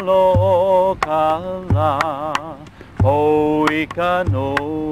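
Hawaiian chant: one voice holding long, wavering notes over a low drum beat struck a little more than a second apart.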